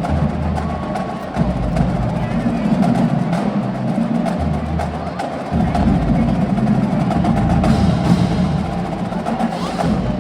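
College marching band playing, with drums and percussion striking over held low brass notes.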